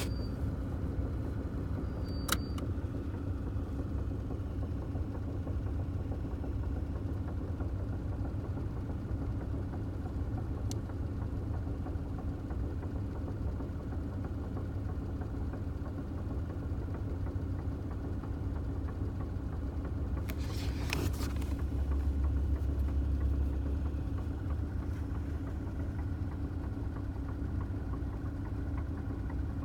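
2009 Toyota Tacoma running at idle with a low rumble and a steady hum, the noise its owner finds weird. A sharp click about two seconds in, a short rattle around twenty seconds in, and the rumble swells briefly just after.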